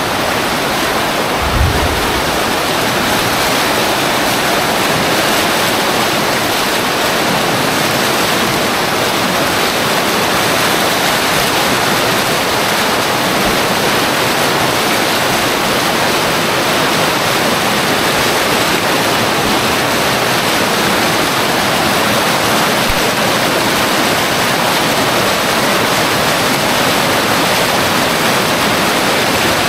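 Fast brown floodwater from an overflowing creek rushing and churning down a street in a steady, loud rush, breaking in waves close by. A brief low thump comes about two seconds in.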